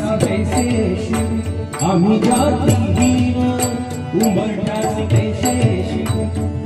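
Hindi devotional bhajan: a male voice singing over a sustained harmonium drone, with tabla and a barrel drum keeping a steady beat of about three strokes a second.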